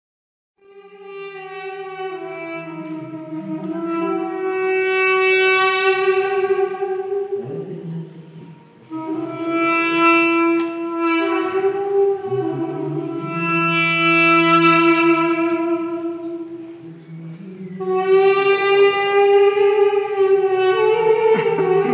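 Armenian duduk, a double-reed woodwind, playing a slow solo melody of long held notes in phrases that swell and fade away, starting about half a second in and dipping twice between phrases.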